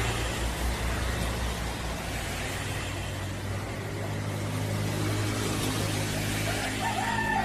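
An engine running steadily with a low hum.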